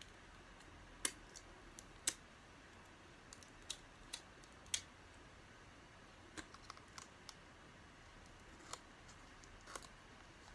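Faint, irregular small clicks and taps of fingernails handling an iPhone 11 Pro and picking at its protective plastic film, about ten in all, the loudest about one and two seconds in.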